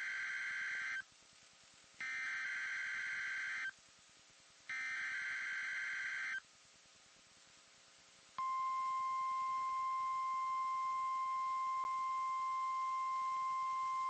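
NOAA Weather Radio emergency alert opening: three buzzing, warbling bursts of SAME digital header data, about a second and a half each with a second of quiet between them, encoding a snow squall warning. The steady single-pitch 1050 Hz weather radio warning alarm tone starts about eight seconds in, with a faint click a few seconds after it begins.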